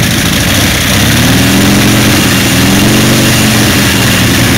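Harley-Davidson chopper's V-twin engine revving, the revs climbing about a second in and then held high.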